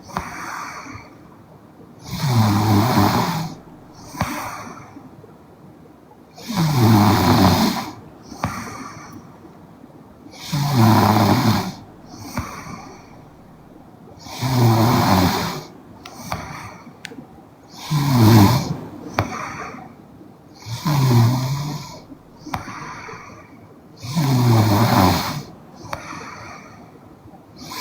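A young woman snoring in her sleep: seven loud snores, about one every four seconds, each followed by a softer breath.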